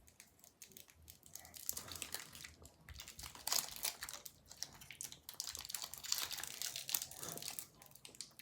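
Plastic snack wrapper crinkling in irregular bursts as it is handled.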